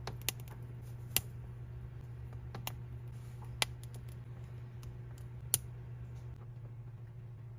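A few sharp, small plastic clicks, about five spread over several seconds, from knock-off Lego-style minifigures and parts being handled. A steady low hum runs underneath.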